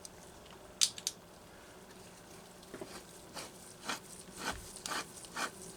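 Crankshaft of a Homelite Super XL chainsaw being turned in a rough main roller bearing: two sharp clicks, then a run of irregular knocks and clicks. The roughness is the sign of a failing bearing whose roller cage has broken.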